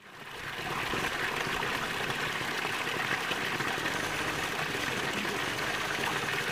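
Small waterfall spilling over rocks into a pool: a steady rush and splash of water that fades in over the first second and cuts off suddenly at the end.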